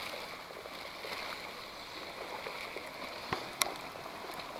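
Creek water running steadily, with two short clicks a little past three seconds in.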